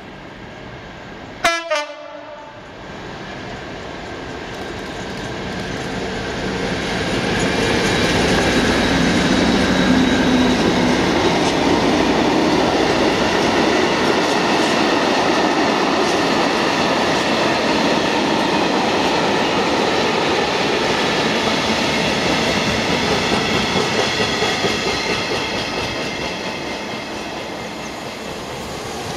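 Class 56 diesel-electric locomotive 56087 gives a short two-note horn blast about two seconds in, then approaches and passes with its Ruston-Paxman V16 engine running, followed by a long train of loaded-sounding covered freight wagons rumbling and clicking over the rail joints. The rumble grows over the first several seconds, holds steady, and eases off near the end.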